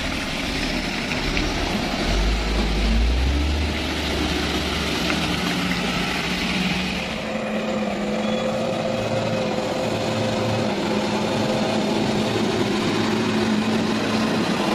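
Diesel engines of loaded Mitsubishi Fuso Colt Diesel trucks running under load as they work through mud on a slippery climb. About seven seconds in, a low rumble gives way to a steadier engine drone.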